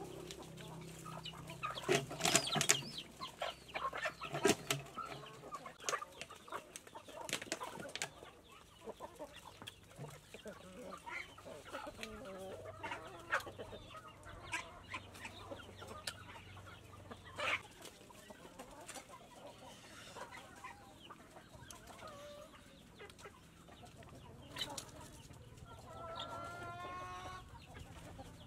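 Domestic chickens clucking, with a longer drawn-out call near the end. Scattered sharp clicks, the loudest bunched about two seconds in.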